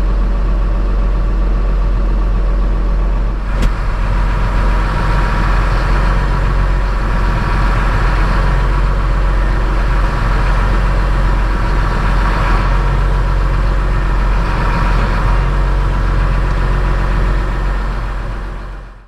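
Tractor engine running steadily. A sharp click comes a few seconds in, after which a higher whine joins the engine; the sound fades out at the very end.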